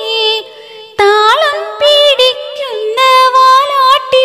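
A young woman's solo voice singing a Malayalam song. A held note fades out, then after a short breath she sings ornamented phrases with quick turns in pitch.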